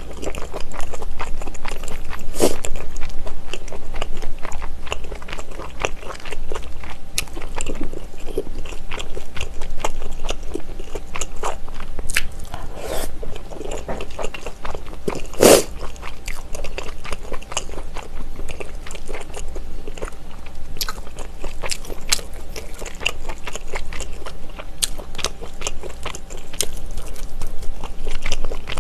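Close-miked chewing and biting of spicy tteokbokki, chewy rice cakes in thick red sauce, with wet mouth sounds and many small clicks, a few of them sharper and louder.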